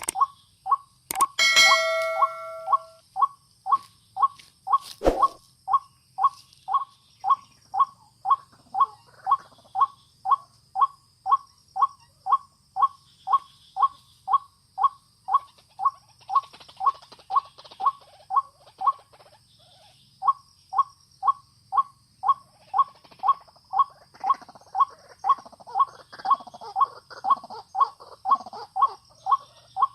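White-breasted waterhen (ruak-ruak) calling over and over: short, even notes about two a second, with a brief pause about two-thirds of the way through. A short chiming effect and sharp clicks sound near the start.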